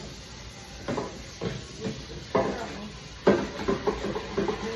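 Refrigerator shelves and drawers knocking and rattling as they are handled and pulled out, about six short clunks, some with a brief ringing.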